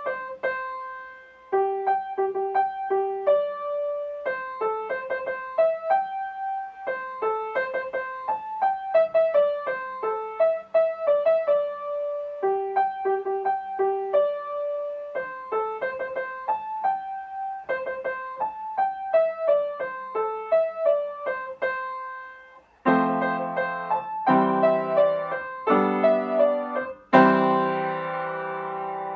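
Piano music: a light, bouncing melody of short notes, then three loud full chords and a final chord about 27 s in that is held and dies away, ending the piece.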